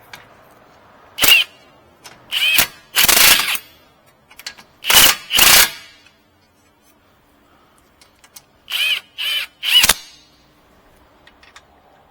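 Impact wrench run in about eight short bursts, in three groups, tightening bolts.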